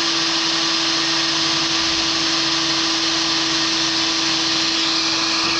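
Cordless drill running at one steady speed, its bit cutting a hole through a small aluminium roof-latch part, with a constant motor whine.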